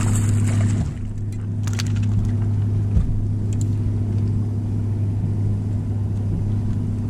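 Boat motor running with a steady low hum, with a few short clicks over it while a bass is reeled in and lifted aboard.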